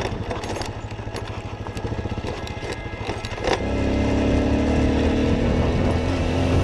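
Italika DM 150 motorcycle's single-cylinder engine running at low revs with a pulsing beat and scattered clicks, then after a sharp click about halfway it picks up and runs louder and steadier at higher revs.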